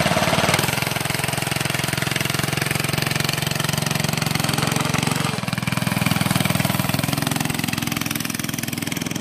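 Go-kart's small engine running through a straight-pipe exhaust with an unmuffled, rapid pulsing note as the kart drives off. The engine note shifts briefly about halfway through.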